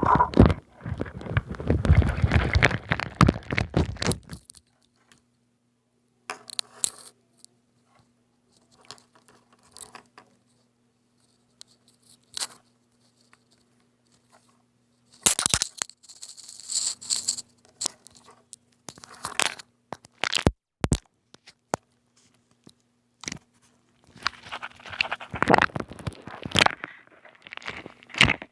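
Slime being handled, giving intermittent crackling and crunching with long quiet gaps between bursts.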